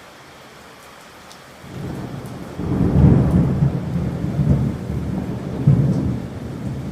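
Thunderstorm: steady rain hiss, then thunder. A low rumble builds under the rain just under two seconds in, turns loud about a second later and rolls on with several swells.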